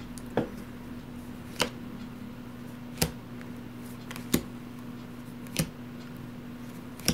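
Game cards being set down on a table one at a time: six short sharp taps about every second and a quarter, over a steady low hum.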